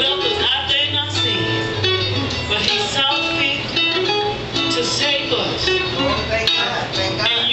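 Music with sustained notes over a steady bass line, with a voice over it.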